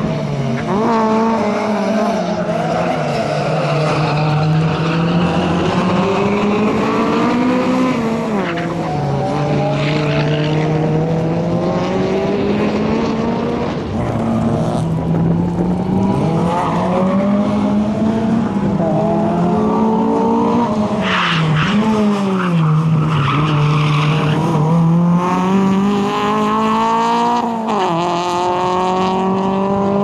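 Honda Civic hatchback's four-cylinder engine revving hard through the gears, its pitch climbing and dropping back again and again as it accelerates and brakes around the course, with tyres squealing at times in the turns.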